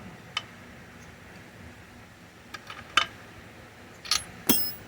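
Scattered sharp metallic clinks and taps from small tools and parts being handled while an old chainsaw is reassembled, about half a dozen in all, the loudest near the end.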